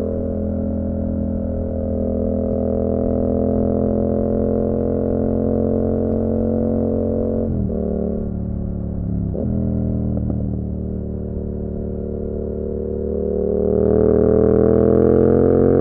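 Yamaha MT-07's parallel-twin engine running through an SC Project Conic exhaust with the baffle out, a steady drone while riding. Its pitch drops sharply twice around halfway through, then climbs and grows louder near the end.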